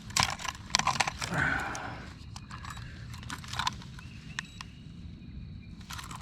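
A few sharp knocks and clatters of handling, bunched in the first two seconds, then quieter with a faint steady high tone.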